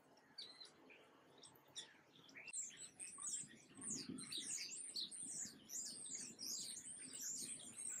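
Small songbirds chirping: a few scattered high chirps at first, then from about three seconds in a rapid, continuous run of high chirps.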